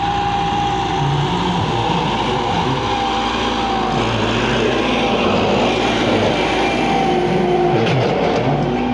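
Massey Ferguson tractor's diesel engine running under load as it pulls a loaded trailer through loose soil, its pitch rising and falling.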